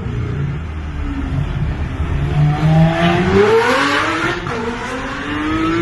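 Lamborghini engine revving: its pitch climbs steadily to a peak about three and a half seconds in, drops back, then climbs again before the sound cuts off abruptly.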